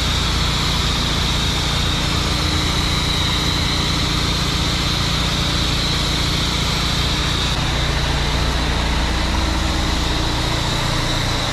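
Heavy diesel truck engine running steadily at idle, with a thin steady high whine over it; its note changes slightly about eight seconds in.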